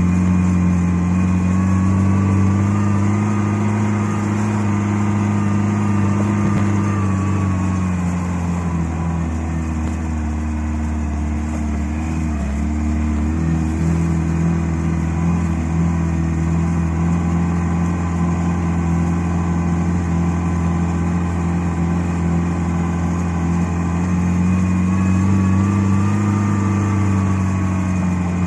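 Lada Niva's engine heard from inside the cabin while driving through deep snow, a steady drone whose pitch rises gently, sags about halfway through and rises again near the end as the throttle changes.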